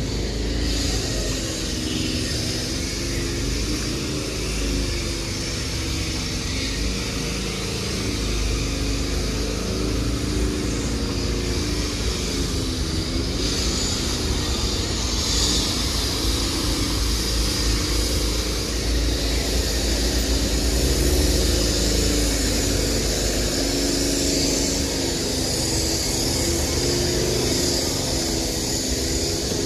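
Town street traffic: a steady low rumble of motor vehicles with engines running, and no single sound standing out.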